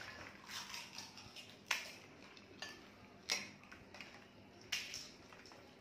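Crisp, hollow puris cracking and clattering against a steel plate as they are picked up and threaded onto wooden skewers: about five sharp cracks, roughly a second apart.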